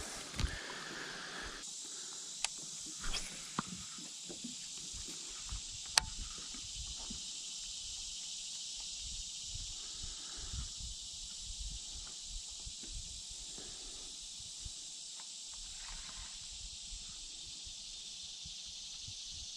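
A steady, high-pitched insect chorus that grows louder a little under two seconds in. Faint scattered knocks and ticks sound under it, with one sharp click about six seconds in.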